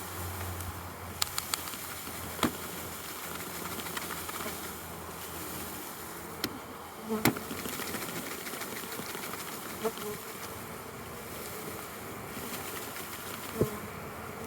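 Honeybees from a package buzzing steadily, with a few sharp knocks scattered through, the loudest about halfway through.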